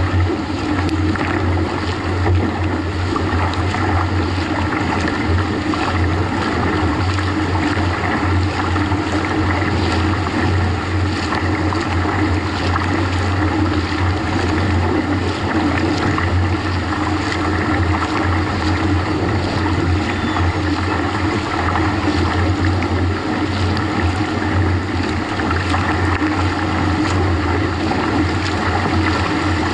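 Wake water rushing and splashing against a kayak hull close behind a motorboat, over the steady low drone of the motorboat's engine.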